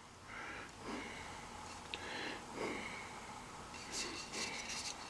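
Faint handling noises: soft rustling, with a quick run of light clicks about four seconds in.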